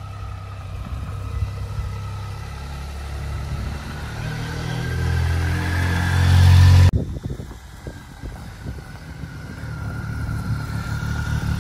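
BMW motorcycle engine running at low speed, getting steadily louder as the bike approaches, then cut off abruptly about seven seconds in. The engine is heard again straight after, quieter at first and rising again near the end.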